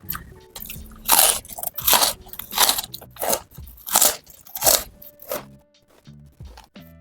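Close-up chewing of crunchy fried food: about seven loud crunches in a steady rhythm, roughly one every 0.7 seconds, that stop about five seconds in. Quiet background music plays underneath.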